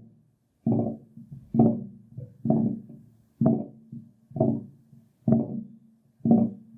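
Old building water pipe pumping water, pulsing about once a second: seven sharp, ringing, pitched pulses, each dying away before the next, over a faint steady hum.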